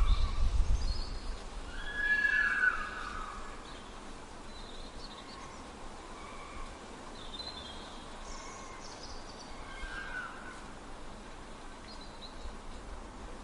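Fox calling: a few short, whining calls, the clearest and loudest about two seconds in and falling in pitch, then fainter ones over a steady hiss. A low rumble sits under the start.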